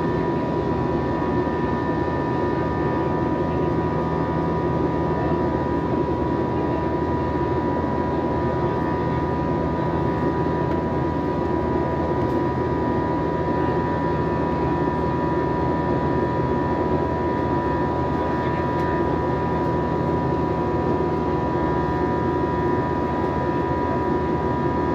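Jet noise heard inside the cabin of an Airbus A321 airliner as it climbs: an even rush with several steady whining tones over it, holding at one level throughout.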